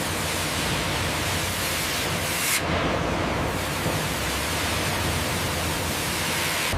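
Steady rushing din of sawmill machinery, an even hiss with low rumble, with a brief change in the hiss about two and a half seconds in.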